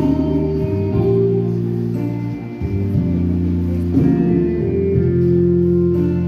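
Men's choir singing a slow hymn with keyboard accompaniment, in long held chords that shift every second or two.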